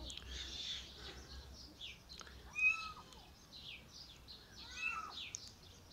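A small kitten mewing twice, about two and a half seconds in and again near five seconds, over steady chirping of small birds.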